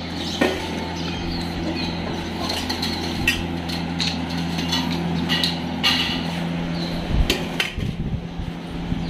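Steel dog food bowls clinking and knocking on a tiled floor, several separate sharp knocks, over a steady mechanical hum.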